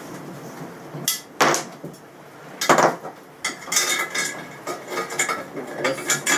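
Metal parts of a bandsaw rip fence being handled and fitted together on a workbench. A few separate knocks come first, the loudest about two and a half seconds in, then a run of ringing metal clinks and clatter.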